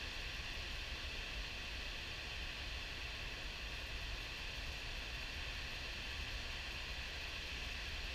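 High-flow river water pouring over a diversion dam's spillway gates and churning in the pool below: a steady, even rush of falling water with a low rumble underneath.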